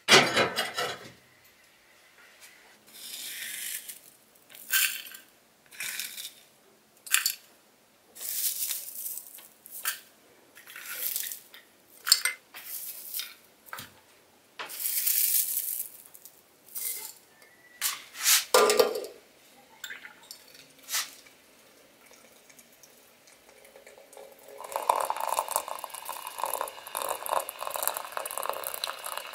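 A metal clank from a brass samovar at the start, then a series of short rustles and clinks as dried herbal tea is spooned into a glass teapot's infuser. About 25 seconds in, hot water starts pouring from the samovar's tap into the infuser, a steady splashing trickle.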